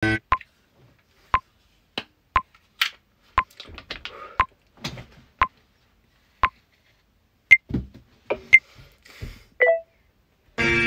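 Phone app's recording countdown timer beeping once a second, the last three beeps higher-pitched and the final one longer, with soft handling rustles and clicks between the beeps. Music starts just before the end.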